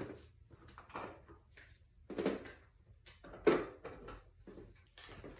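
Grooming tools being handled on a grooming table: a handful of short knocks and clatters at irregular intervals, with no clipper running yet.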